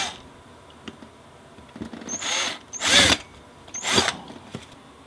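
Cordless drill with a thin bit spotting a pilot hole in a round stainless steel pipe, run in four short bursts, each spinning up with a quick rising whine.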